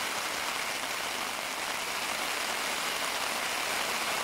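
Steady rain falling on a tarp overhead and on the tent and heather around it, an even hiss without breaks.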